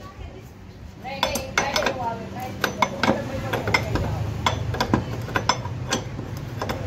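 Steel ring spanner clinking against a bolt head as it is worked round to loosen the bolt: a run of sharp metallic clicks, some ringing briefly, starting about a second in.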